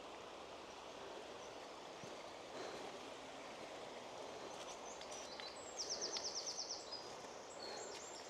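Steady rush of a river flowing below. About six seconds in, a small bird sings a quick trill of about ten high notes, with a few other brief high chirps around it.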